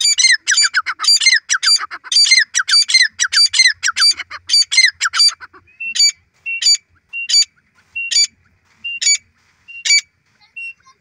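Grey francolins calling loudly. For the first five and a half seconds there is a fast run of high, falling notes, several a second. After that come single sharp notes, about one every two-thirds of a second, which stop shortly before the end.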